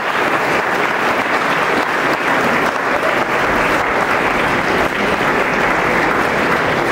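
An audience in a hall applauding steadily, a dense sustained clapping after the pupils take their bow.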